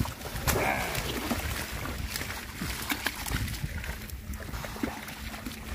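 Shallow water splashing as a bamboo polo fishing trap is slammed down about half a second in, then sloshing and small splashes as a hand gropes inside the trap for fish, over a low wind rumble on the microphone.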